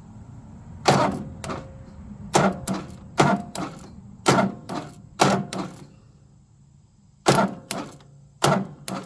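Repeated sharp snaps of a jumper-cable clamp sparking against a riding mower's starter terminal, about ten of them mostly in pairs. The starter does not turn over.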